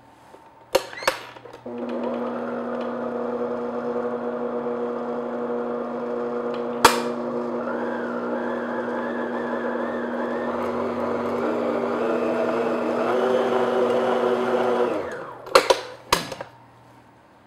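Electric tilt-head stand mixer beating flour into thick pound cake batter: a click or two as the head is locked down, then the motor runs with a steady hum for about thirteen seconds, its pitch shifting slightly as the load changes, and stops, followed by clicks as the head is raised.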